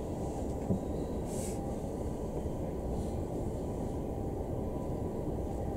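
Steady low hum inside a standing JR E233 series 5000 commuter train car, with a brief hiss about a second and a half in.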